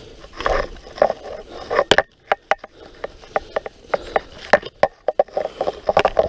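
Mountain bike rattling over a rough forest dirt trail: irregular sharp clicks and knocks from the chain and frame as it jolts, over the rush of tyres on dirt and brushing vegetation.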